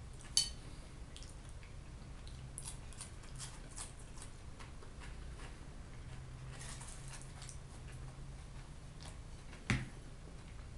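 Close-up eating sounds: soft wet chewing and mouth clicks. A fork clinks against a plate with a short ring about half a second in, and there is a louder knock near the end.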